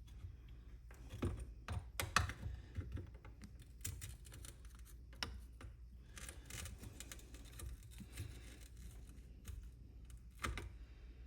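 Scattered small clicks, taps and scrapes of hands and tools working wires during soldering inside an amplifier chassis, over a low steady hum. The clicks come thickest for the first few seconds and again near the end.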